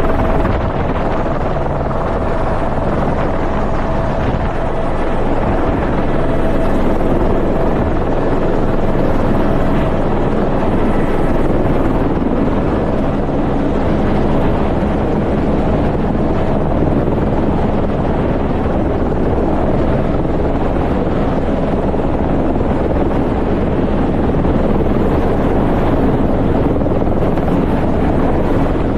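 Helicopter rotor and engine running steadily and loudly throughout.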